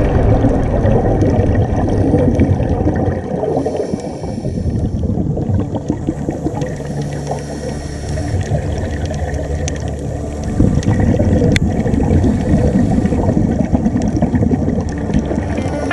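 Sound recorded underwater near scuba divers: a low, gurgling rumble of exhaled regulator bubbles, dropping back for a few seconds partway through and then growing louder again, with scattered faint clicks.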